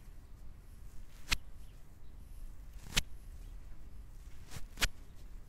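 Hands massaging an oiled bare back: four sharp smacks of skin, roughly one every second and a half, the last two close together, over a low steady rumble.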